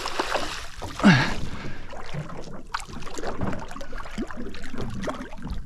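Wind and water noise around a small boat, with scattered light knocks. About a second in there is a short falling vocal sound.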